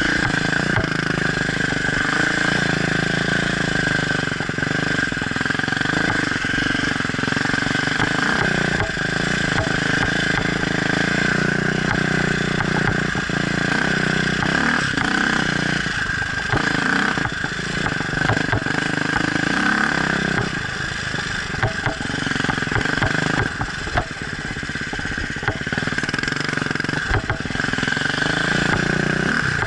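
Enduro dirt bike engine running under way, its pitch stepping up and down with throttle and gear changes, with many short knocks and rattles throughout.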